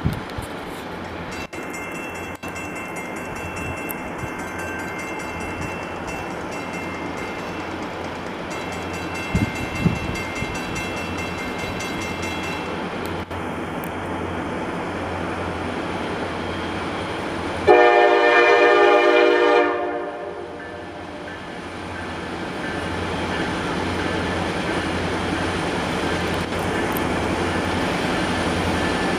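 Norfolk Southern freight train's diesel locomotives running steadily as they work uphill toward the listener. About two-thirds of the way in, the lead locomotive sounds its air horn in one loud blast of about two seconds.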